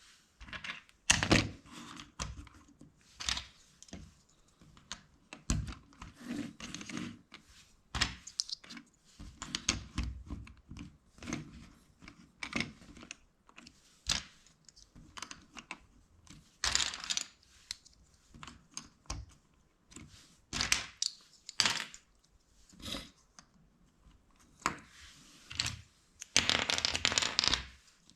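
LEGO bricks being handled and pressed together: irregular hard plastic clicks and short rattling clatters, with quiet gaps between them.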